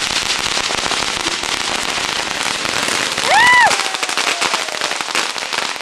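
A firework mounted on a radio-controlled car crackling steadily with dense, rapid pops. About three and a half seconds in there is a brief, loud whistle-like tone that rises and falls.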